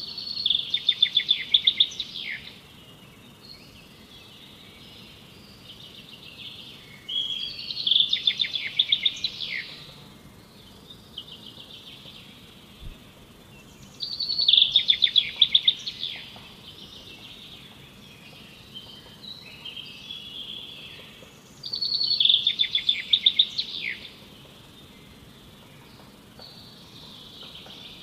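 A songbird sings the same loud, rapid-note song phrase four times, about every seven seconds, each phrase lasting two to three seconds. Softer calls from other birds and a faint steady background fill the gaps.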